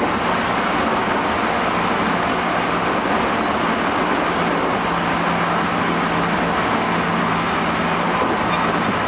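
JR Central 211-series electric train running at steady speed, heard in motor car MoHa 210-5017: traction-motor hum with wheel and rail noise. This car is known for an abnormal, very loud motor noise.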